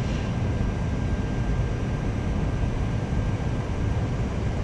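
Panasonic inverter microwave oven running: a steady low hum from its fan and turntable motor with a thin steady high whine on top. It is running normally after its inverter board's IGBT and fuse were replaced, the fuse holding.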